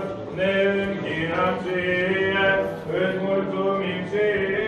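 Male voices singing Orthodox church chant in long held notes, with short breaks between phrases about a third of a second in and again at about three seconds.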